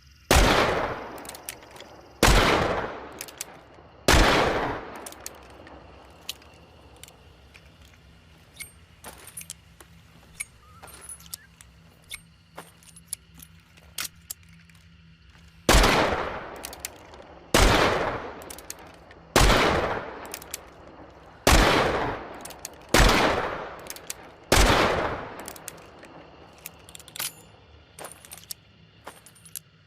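Model 3 revolver firing: three shots about two seconds apart, each trailing off in echo, then a stretch of small clicks and handling noises, then six more shots at the same pace, followed by more clicks.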